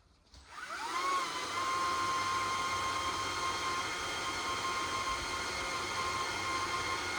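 Stihl chainsaw revved up to full throttle about half a second in, its pitch rising fast. It then holds a steady high-pitched whine at high speed while cutting into a tree.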